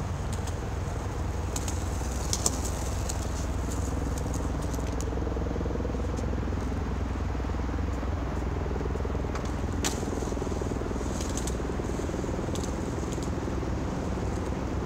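Vintage Freeformer skateboard with hard wheels rolling on concrete: a grinding rumble that swells as it passes mid-way, with a couple of sharp clacks, one about two seconds in and one past the middle. A steady low rumble runs underneath.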